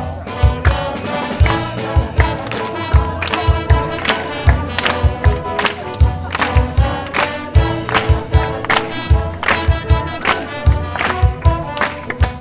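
Wind band playing lively music, with many instruments holding notes over frequent, strong bass drum hits.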